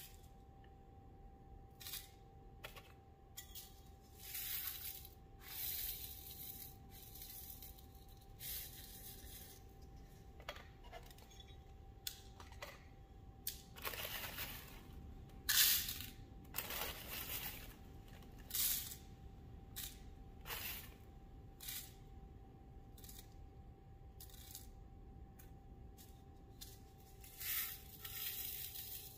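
Small pieces of Oceanside COE 96 coarse glass frit clinking and rattling in short, irregular bursts as they are handled and dropped into the cavities of a heart mold, with a plastic bag crinkling. A faint steady tone runs underneath.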